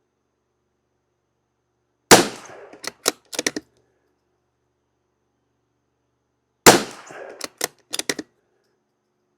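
Two shots from a Savage Mark II FV bolt-action .22 LR rifle, about four and a half seconds apart. Each shot is followed by a quick series of four short metallic clicks as the bolt is worked to eject the case and chamber the next round.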